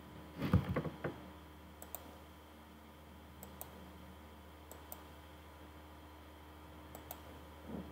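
Computer mouse clicking at a desk: pairs of sharp clicks a few times, with a short cluster of louder knocks about half a second in.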